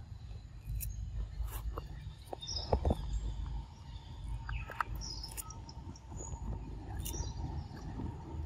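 Outdoor nature ambience: insects droning steadily and birds chirping, with a few scattered soft clicks and a low rumble underneath.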